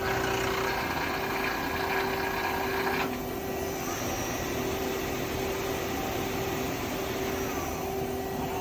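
Amada S10 CNC turning center running with a steady machine hum. A hiss over the hum stops abruptly about three seconds in.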